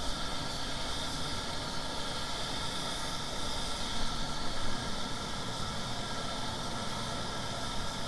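Compressed-air paint spray gun hissing steadily as it sprays paint, with a steady low machine hum underneath.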